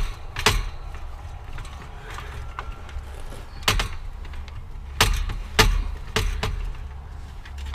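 Sharp knocks and clicks of a roof lining panel being pushed and fitted back into place, a handful of irregular impacts with some creaking.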